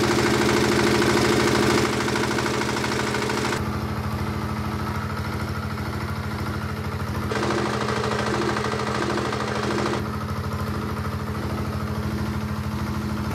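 Single-cylinder stationary diesel generator engine running steadily at constant speed, its sound changing abruptly a few times. CO2 gas is being fed into its air intake and makes no audible difference: the engine neither slows nor falters.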